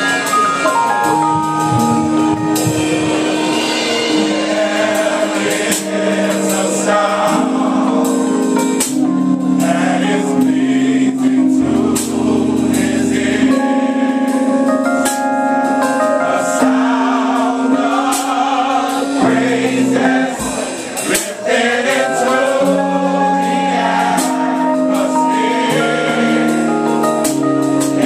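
Gospel choir singing over held instrumental chords and steady percussion hits, with a brief drop in level about two-thirds of the way through.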